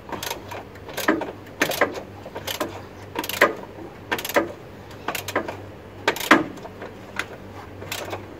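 Socket ratchet clicking in short bursts about once a second as a 16 mm engine-mount bolt is worked loose, a stubborn bolt that is hard to turn.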